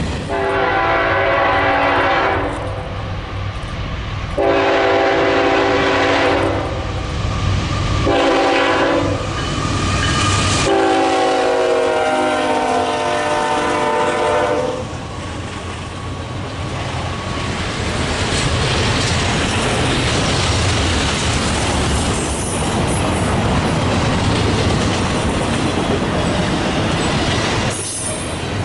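Freight locomotive air horn sounding long, long, short, long, the grade-crossing signal, with the last blast held longest. After it, the train rumbles and clatters steadily past on the rails.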